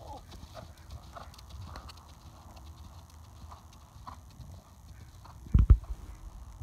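Hoofbeats of a thoroughbred horse cantering on soft arena footing, a run of dull low thuds. Two loud thumps come close together near the end.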